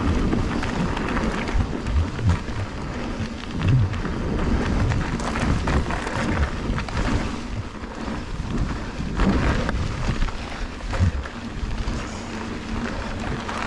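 Trek Fuel EX 8 full-suspension mountain bike riding fast down a dirt singletrack: steady tyre noise and rattle from the bike, with irregular low thumps over bumps and wind buffeting the microphone.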